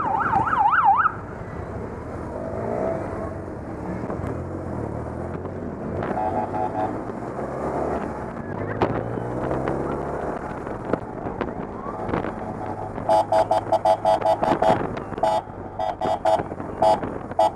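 Police motorcycles: a siren yelps fast and cuts off about a second in, then engines run and rev with rising pitch. Near the end, rapid short blasts of an electronic horn or siren tone repeat several times a second.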